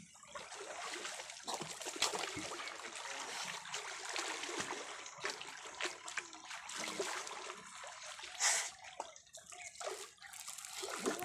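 River water sloshing and splashing around a man wading chest-deep and working a fishing net, with a fish thrashing in the net; one louder splash about three quarters of the way through.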